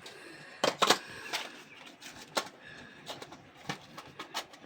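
Scattered light clicks and clinks of dishes and utensils being handled as a meal is laid out, a sharp knock every half second or so.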